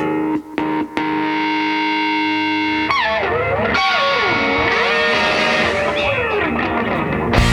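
Distorted electric guitar music starting abruptly: a chord struck and briefly cut twice, then held, followed by sliding, bending notes. A full rock band comes in near the end.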